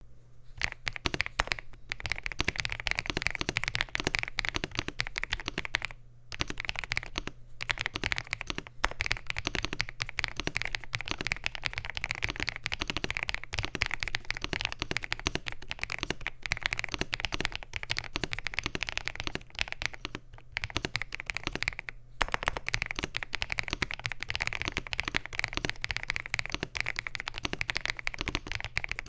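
Continuous fast typing on an Ajazz AK980 mechanical keyboard with Huano Gift V2 switches, PBT cherry-profile keycaps, an FR4 plate and a gasket-mounted plastic case: a dense run of key clacks, with brief pauses about six seconds in and again around twenty to twenty-two seconds.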